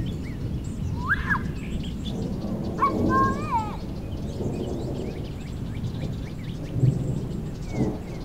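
Birds calling in short rising-and-falling chirps, about a second in and again around three seconds, over the low rolling rumble of distant thunder. A couple of brief low thumps come near the end.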